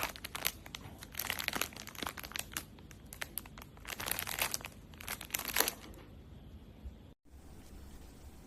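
Packaging crinkling as it is handled, in irregular bursts over the first six seconds, then quieter after a brief cut-out about seven seconds in.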